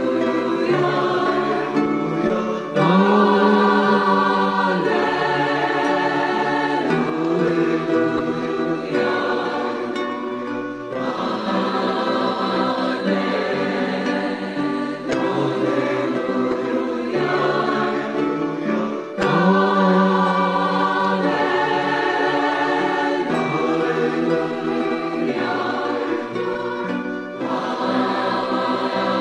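Recorded choral singing: a choir holding long, sustained notes that change every second or two, with voices reaching into high notes.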